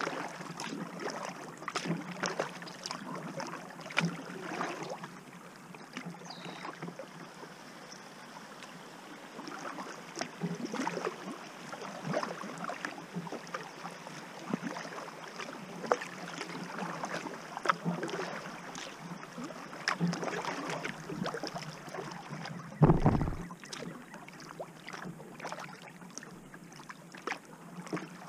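Kayak paddling: the paddle blades dip and splash in calm river water with dripping between strokes at an uneven pace. One louder thump comes late on, about five seconds before the end.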